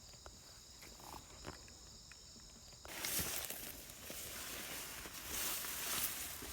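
Faint, steady, high-pitched insect drone with a few small clicks, cut off about three seconds in. Then footsteps rustling on the woodland floor.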